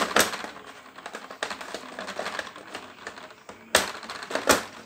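Metal hand tools from a 1/2-inch drive socket set being handled in their plastic case: a quick run of clicks and clatter, with sharper knocks at the start, nearer the end, and just before the close.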